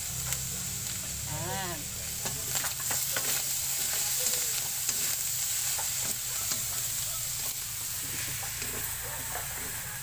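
Broccoli and ground pork sizzling in a stainless steel pan, with a steady hiss of frying and frequent short clicks and scrapes as a wooden spatula stirs against the pan. A brief high squeak sounds about a second and a half in.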